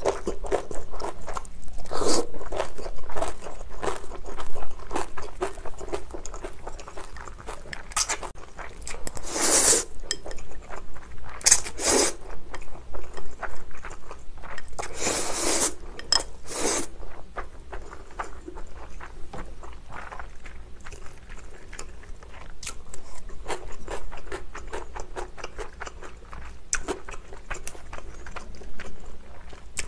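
Close-miked eating of chewy spicy cold noodles (jjolbibimmyeon): wet chewing with many small mouth clicks, and several long, loud slurps of noodles at about 10, 12 and 15 to 17 seconds in.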